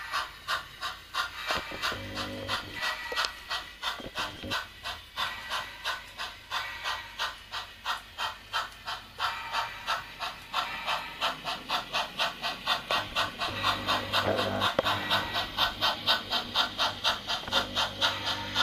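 Bachmann HO-scale 4-4-0 model steam locomotive running with steam chuffs, about three a second, the chuffs growing louder and a little quicker in the second half.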